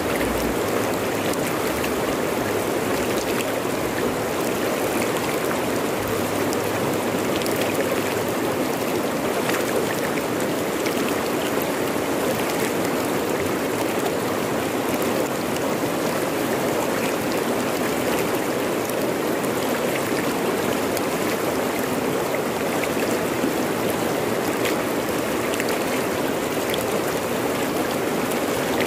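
Fast-flowing river rushing over rocks: a steady, even rush of water with small splashes in it.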